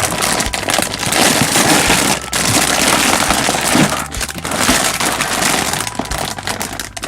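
Plastic instant-ramen packet crinkling and crackling loudly as it is handled, with a brief pause about two seconds in.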